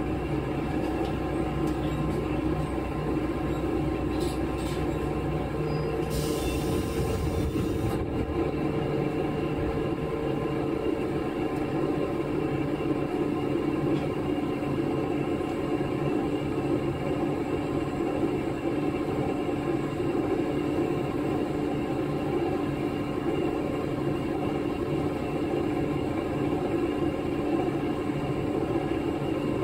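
KiHa 11 diesel railcar running, heard from on board: a steady engine drone with a hum and rail rumble underneath. About six seconds in there is a hiss lasting about two seconds, and after it the low rumble eases.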